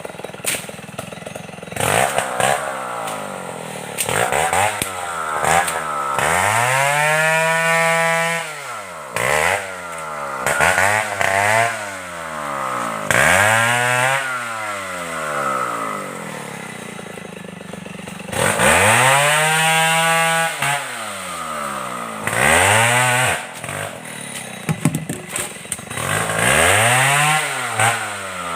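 Stihl 070 two-stroke chainsaw revving up and down again and again, with several longer stretches held at full throttle before the engine falls back toward idle.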